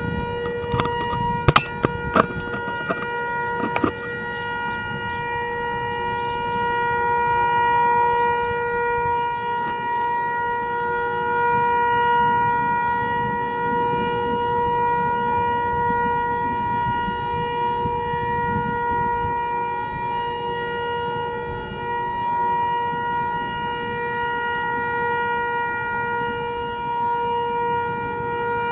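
Outdoor tornado warning siren sounding one long, steady tone, with wind noise on the microphone beneath it. A few sharp clicks come in the first few seconds.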